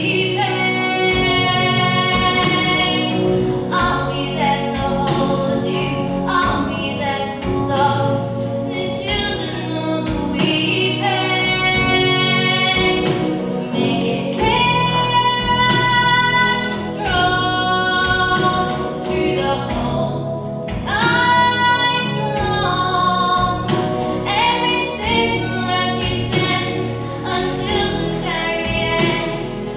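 A girl singing a solo show tune with long held, vibrato-laden notes over musical accompaniment.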